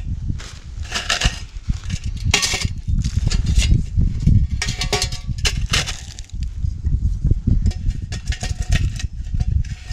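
Stainless steel camp stove parts (a Solo Stove wood-burning stove, its pot stand and a nesting steel cup) being taken apart and set down: a run of metallic clinks and clatters, a few ringing briefly, over a steady low rumble.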